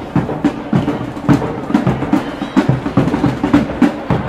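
Drum roll: a fast, uneven run of drum hits with a low steady note under them.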